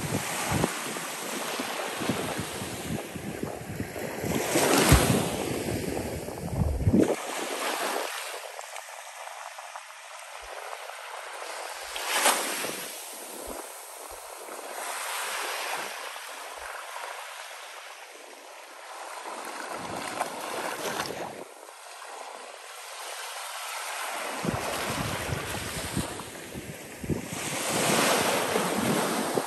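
Small waves breaking and washing up a sand beach, the surf swelling and fading several times, loudest about five seconds in, about twelve seconds in and near the end. Wind rumbles on the microphone at times.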